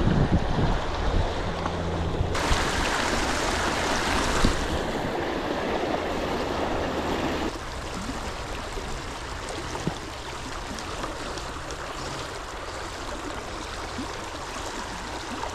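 River water flowing steadily, its rushing sound stepping up abruptly about two seconds in and dropping to a quieter flow about halfway through.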